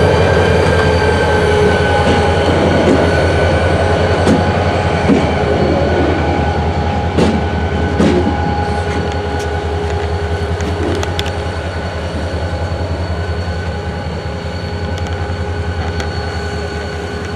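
Two CSX diesel locomotives running light past and away, their engines rumbling with a steady high metallic whine over it. A couple of sharp clanks come about 7 and 8 seconds in, and the sound fades gradually as the locomotives recede.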